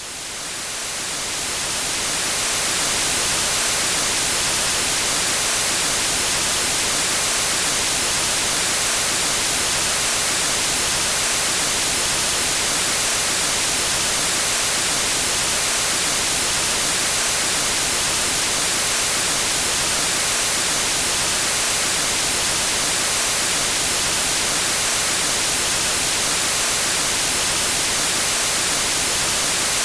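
Steady white noise like the hiss of a TV with no signal, fading up over the first few seconds and then holding even.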